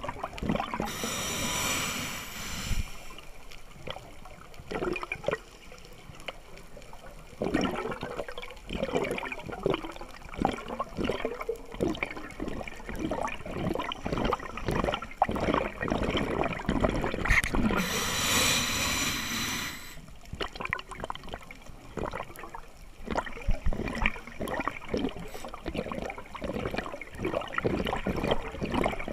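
Scuba diver's exhaled bubbles rushing and gurgling past the camera housing twice, each for about two seconds, near the start and about two-thirds of the way through. Between the rushes there is a constant crackle of small clicks underwater.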